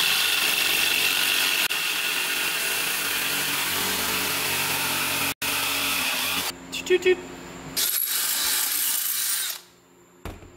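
Black+Decker corded jigsaw cutting a perforated metal strap bracket, running steadily for about six seconds. A few clicks follow, then a second, shorter burst of power-tool noise.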